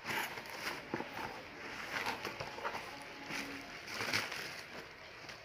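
Cardboard shipping box being opened by hand: a series of short scrapes and rustles as the flaps are handled and the bubble-wrapped contents shift inside.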